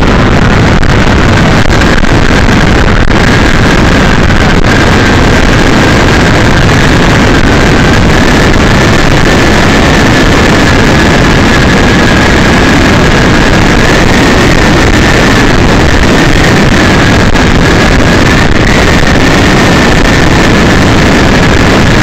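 Loud, steady road and wind noise of a car driving at highway speed, heard from inside the cabin, with a faint thin whine that slowly rises in pitch.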